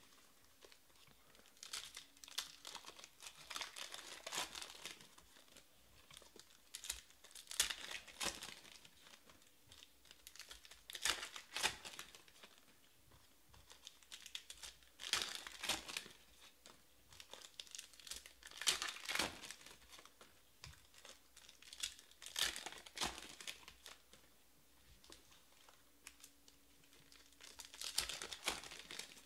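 Foil trading-card pack wrappers crinkling and tearing as packs are ripped open by hand, in short bursts every few seconds.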